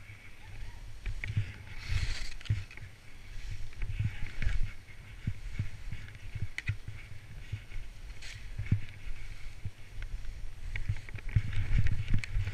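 Skis sliding and scraping over snow, a hiss that swells and fades with each turn, over a low rumble and frequent small knocks as the camera rides over the bumpy snow.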